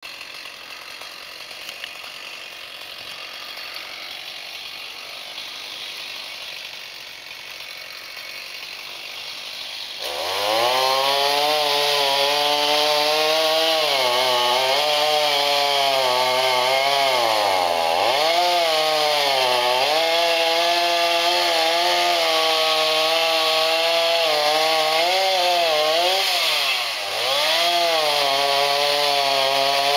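Chainsaw starting up about a third of the way in and then running at full throttle while cutting into a standing tree's trunk, its pitch sagging and recovering several times as the chain bogs in the cut. Before it starts there is only a faint, steady hiss.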